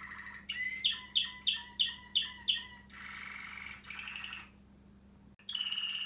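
Waterslager Malinois canary singing: a run of about six sharp repeated notes, then a rolling trill, a brief pause and a new phrase near the end.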